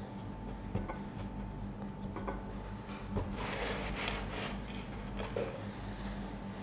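Fingers pressing crumbly shortbread dough down into a metal baking tin: soft rubbing and crumbling, with a few light knocks of the tin on the wooden table.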